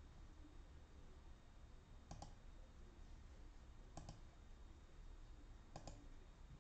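Near silence with faint computer mouse clicks: single clicks about two and four seconds in, then a quick double click near the end.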